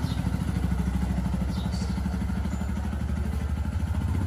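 Bajaj Maxima three-wheeler's single-cylinder engine running as it pulls away, a rapid low chugging that evens out after the first second or so.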